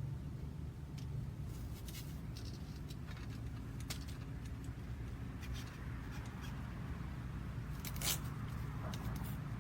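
Scattered light clicks and rustles of small objects being handled over a steady low hum, with one sharper click about eight seconds in.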